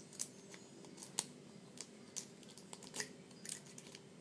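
Lock pick raking the pin tumblers of an Abus Inox padlock: irregular small metallic clicks and scrapes.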